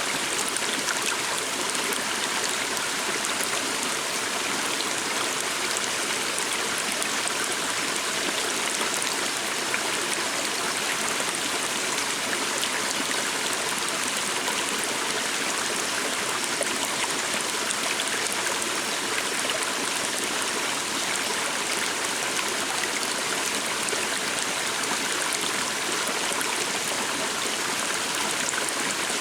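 A small forest stream running steadily, a continuous even rush of flowing water.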